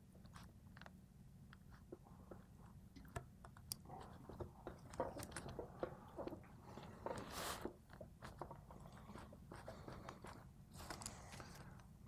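Faint scattered clicks, scrapes and crunching of hand work on a Hardinge lathe cross slide, with a wrench on its adjusting nut and steel parts shifted on a newspaper-covered table. A longer rustling scrape comes about seven seconds in.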